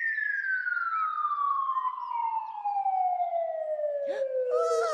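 Whistle-like sound effect for a falling object, one smooth tone sliding steadily down in pitch the whole time. A short excited voice cuts in near the end.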